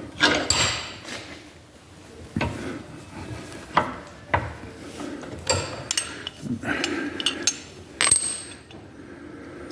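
Bench vise and steel door-hinge parts clinking and clanking as a new hinge pin is pressed in: about eight sharp metallic knocks, each with brief ringing, spread irregularly over several seconds.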